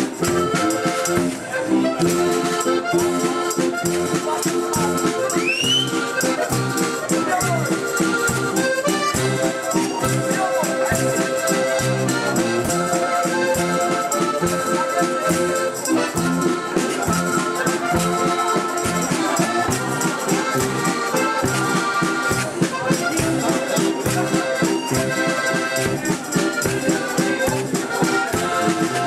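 Live folk music: a diatonic button accordion plays a lively tune over a drum-kit beat, with jingling percussion.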